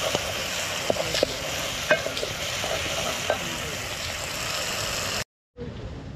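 Chopped vegetables sizzling as they fry in a large aluminium pot, stirred with a wooden spoon that knocks against the pot a few times. Just before the end the sizzling cuts off suddenly, and a fainter steady noise follows.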